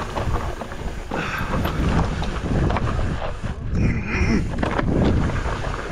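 Pivot Firebird mountain bike descending a steep, rocky trail: tyres rattling and crunching over loose rock, with wind buffeting the microphone and a brief high squeal about two-thirds of the way through.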